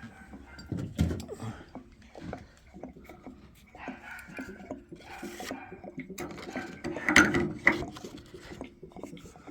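Wrench working loose the threaded fitting on a water heater's temperature and pressure relief valve: scattered metal clinks and knocks, a cluster of louder ones near the end.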